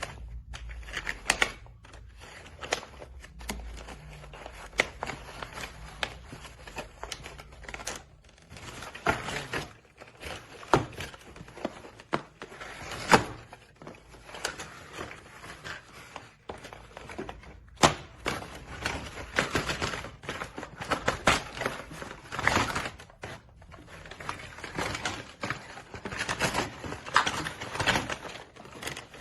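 Irregular clicks, taps and plastic-and-cardboard rustling as a toy is freed from its retail packaging by hand, with a few sharper knocks.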